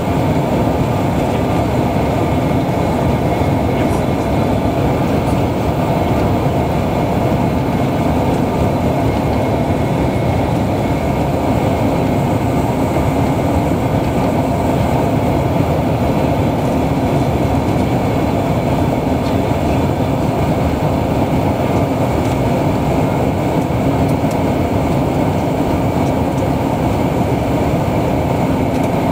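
Steady cabin noise inside a Bombardier CRJ900 regional jet on approach to land: the even rush of air over the fuselage mixed with the hum of its rear-mounted turbofan engines, a few faint steady tones held through it.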